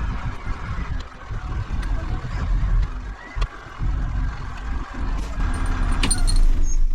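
Truck engine running steadily with a low, heavy sound, and a few light clinks near the end.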